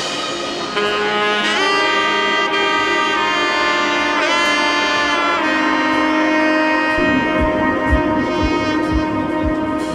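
Music: a held melody with bending notes over sustained tones, with a low beat of about two thumps a second coming in about seven seconds in.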